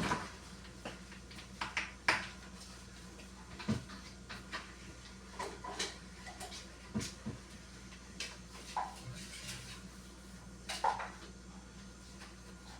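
Refrigerator shelves, drawers and containers being handled during cleaning: a string of scattered knocks and clatters, more than a dozen, over a steady low hum.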